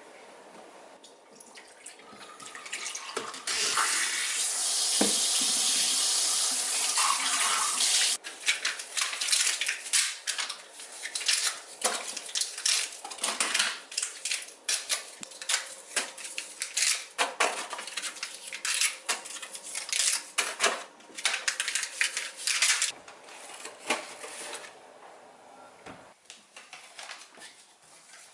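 Tap water running steadily into a sink for a few seconds, then irregular splashing and light clatter of washing at the sink, which thins out near the end.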